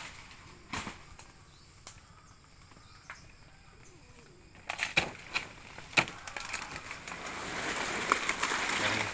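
Rustling of banana leaves and undergrowth, with scattered snaps and knocks, building to a louder rustle near the end.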